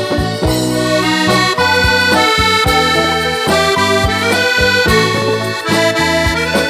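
Fratelli Crosio chromatic button accordion playing a melody, backed by an electric keyboard and a drum kit keeping a steady beat.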